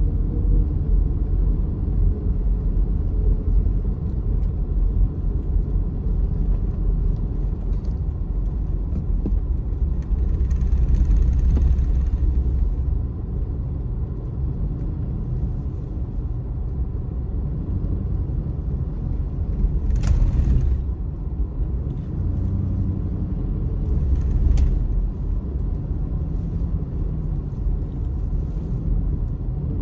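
Steady low rumble of a vehicle running, heard inside its cab in a snowstorm. A brief hiss comes about ten seconds in, and a sharp knock about twenty seconds in.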